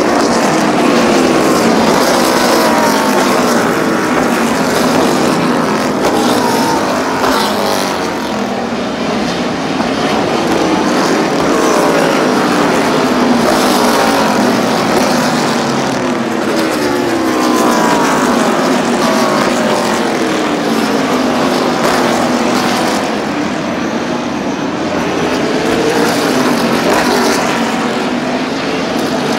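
NASCAR stock cars' V8 engines running hard as a field of cars passes one after another, the engine notes repeatedly sliding down and climbing back up in pitch as the cars shift down and accelerate through the corners.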